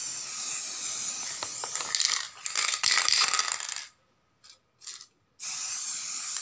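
Aerosol spray paint can spraying in long hisses, with metallic rattling and a few clicks in the first half. The spray stops about four seconds in, gives two short puffs, then hisses steadily again.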